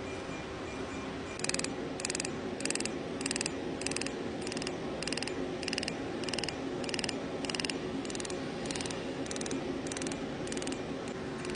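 Erbium dental laser (NightLase snoring treatment) firing in the mouth, pulsing in a steady train of short bursts a little under two per second that starts about a second and a half in, over a steady low hum.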